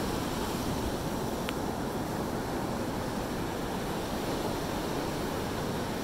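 Ocean surf breaking and washing up a sandy beach: a steady rush of waves.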